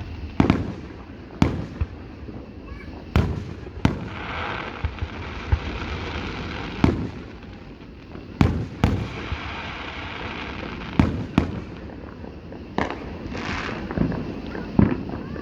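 Fireworks display: about a dozen sharp booms from bursting shells, some in quick pairs, with stretches of crackling hiss between them and a low rumble underneath.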